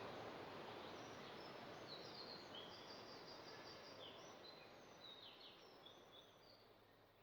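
Forest ambience of small birds chirping in short high notes over a soft steady hiss, the whole fading out gradually.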